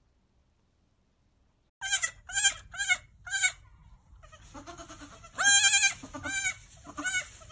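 Young goat kids bleating: four short bleats in quick succession, then a longer, louder bleat and a few shorter ones after it.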